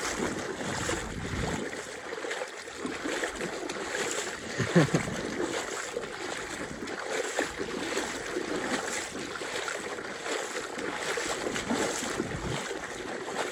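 Shallow lake water sloshing and lapping, with wind on the microphone; the level swells irregularly, with a louder swish about five seconds in.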